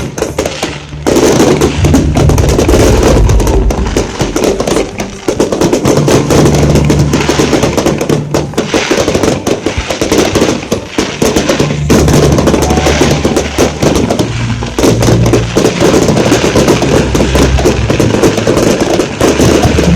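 Fireworks banging and crackling in rapid volleys over loud music with a heavy bass line.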